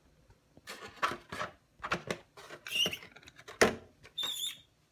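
Plastic handling noise: a run of clicks, knocks and rustles, with two short high squeaks, one near the middle and one near the end.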